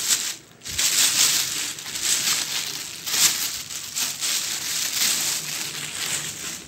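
Thin plastic bags crinkling and rustling as a sneaker is handled and pulled about in them, in uneven swells with a short lull just under a second in.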